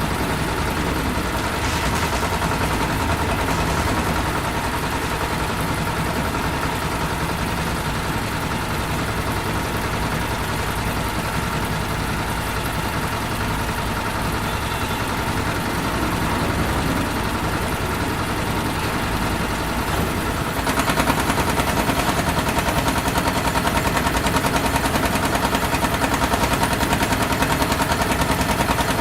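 Large industrial engines running steadily, a dense mechanical din with a fast, even pulse and a few held tones. About two-thirds of the way through the sound steps up, louder and brighter, with a sharper rapid beat.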